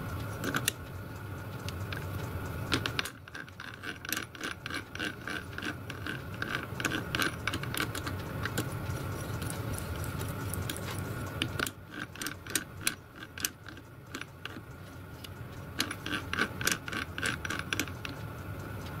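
Light metallic clicks and rattles from the hand-worked headstock of a miniature lathe: its gears, stepped pulley and back-gear latching mechanism being moved and turned by hand. The clicks come in several short flurries over a steady faint hum.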